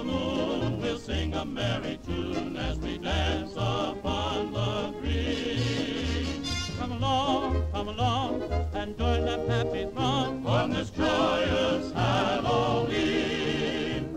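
A cartoon song: a character singing with a wavering vibrato over a band accompaniment with a steady, bouncing bass line.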